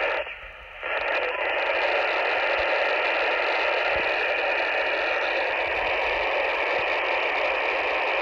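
Steady static hiss from a UHF walkie-talkie's speaker with the squelch open and no signal on the channel. It drops out briefly about half a second in.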